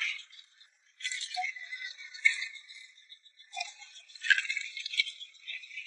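Crackling, clattering rattle of a live seafood catch (crabs, shrimp and small fish) being handled and sorted. It comes in irregular spells with a few sharper clicks, after a short lull about half a second in.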